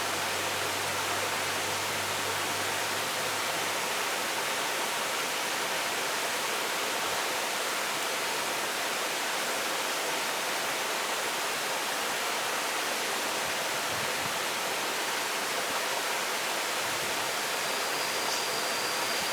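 Steady rush of flowing river water, an even hiss with no change in level.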